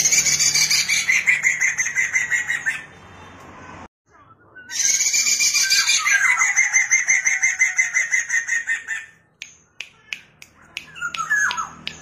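Poksay mandarin laughingthrush singing in two long phrases of rapid repeated notes, with a short break between them. A few short notes follow near the end.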